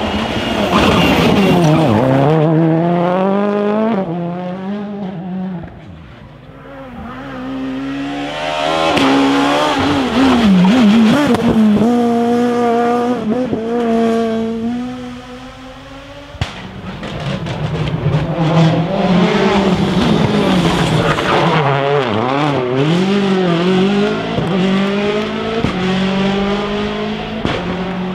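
Rally cars driven hard on a special stage: engines revving up and down through gear changes, each car swelling and fading as it goes past, about three passes in all.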